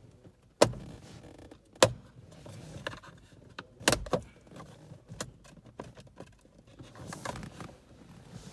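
Sharp plastic clicks and knocks with small rattles as a screwdriver pries at the steering column's plastic housing around the clock spring. The loudest knocks come about half a second, two seconds and four seconds in.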